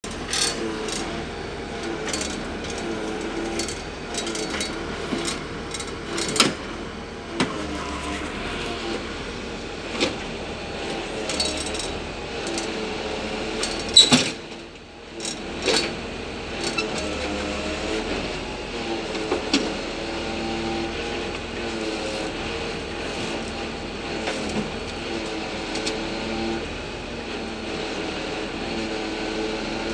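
Lorry-mounted hydraulic crane working off the delivery truck's running engine: a steady mechanical drone that rises and falls in pitch as the crane is operated, with scattered clanks and knocks and one loud knock about halfway through.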